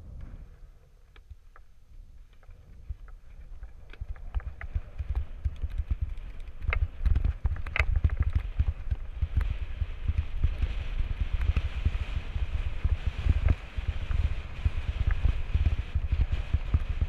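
Wind buffeting the action camera's microphone as a mountain bike rolls down a rocky dirt trail. The buffeting grows louder as the bike picks up speed about four seconds in. Irregular clicks and rattles come from the bike and its tyres over loose stones.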